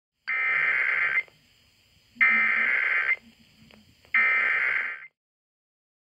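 Emergency Alert System SAME header: three bursts of high-pitched, warbling digital data tones, each about a second long with about a second between them. The bursts mark the start of an EAS message, here a Required Weekly Test.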